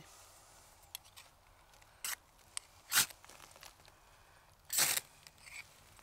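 Ferro rod (fire steel) being struck: three main sharp scrapes, a second or two apart, the last the longest and loudest, with a few faint ticks between, throwing sparks onto shredded waxed-string tinder to light a campfire.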